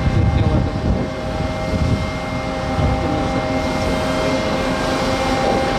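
Steady drone of heavy machinery holding several steady tones, with uneven low rumbling in the first few seconds.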